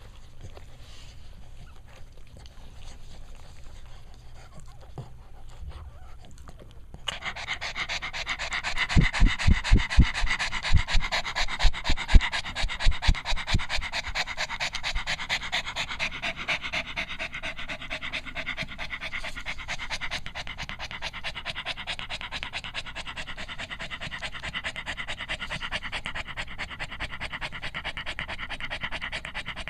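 Cavalier King Charles Spaniel mother dog panting rapidly and steadily, starting about a quarter of the way in, with a run of low thumps in the middle. This is normal panting after giving birth, while her newborn puppies nurse.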